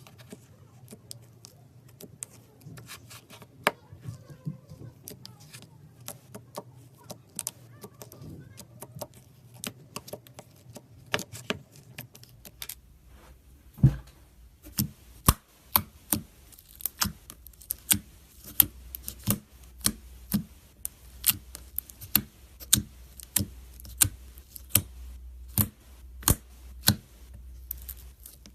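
Slime being squeezed and pressed by hand, making a string of sharp clicks and pops. They are soft and scattered at first, then from about halfway through louder and steadier, about two a second.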